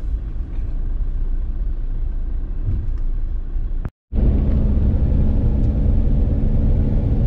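Camper van rumbling along heard from inside the cab: steady low engine and road noise. It drops out for an instant about four seconds in and comes back louder, with a steady low hum.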